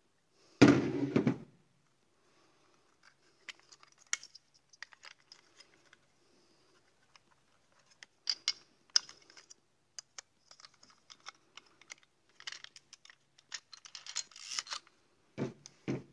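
Parts of a Mamiya RZ67 120 film back being handled. There is a loud clatter about half a second in as the film insert is pulled out of the back, then scattered light clicks and rustles, and a knock near the end.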